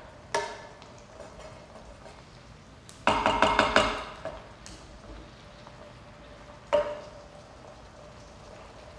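A cooking utensil stirring diced bell pepper, onion and garlic in an electric skillet, knocking against the pan: a single tap at the start, a quick run of about seven taps in the middle, and one more tap later on.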